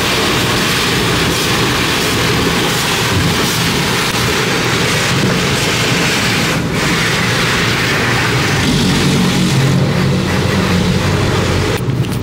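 Automatic car wash heard from inside the car: water spray and wash brushes beating over the windows and body in a steady, loud rush. A low machine hum comes up in the second half.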